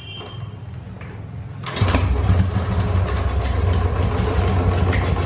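2012 Royal Enfield Bullet Electra's single-cylinder engine starting a little under two seconds in, then idling steadily with a regular light 'tik tik' ticking: the tick noise this engine makes at idle.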